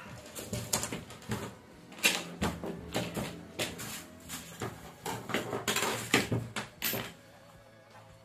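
Hands handling and working at wrapped packaging: irregular clicking, crinkling and tapping that dies down about seven seconds in.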